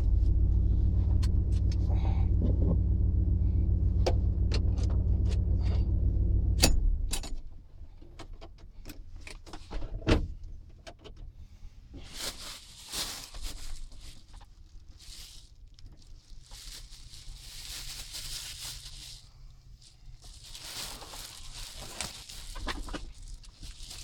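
A truck's engine idles steadily and is switched off about seven seconds in. Scattered clicks and a sharp knock about ten seconds in follow, then intermittent rustling.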